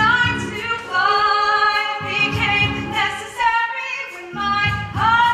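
A stage musical's ensemble cast singing a show tune, with female voices prominent, holding long notes over instrumental accompaniment.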